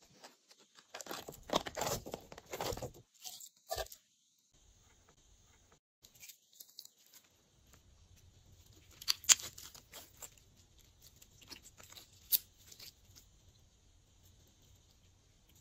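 Glossy slime being worked by hand, giving sticky crackling and clicking. A dense burst of crackles comes near the start, then after a pause come sparser pops, with two sharp louder clicks later on.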